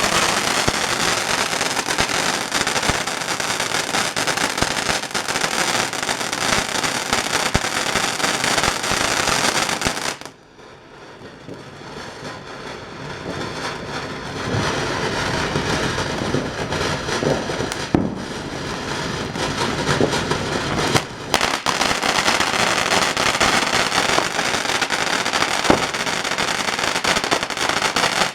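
World Class Mesmerize firework fountain burning: a loud, steady hissing spray full of crackles. About ten seconds in it drops away suddenly, then builds back up over the next few seconds and runs on.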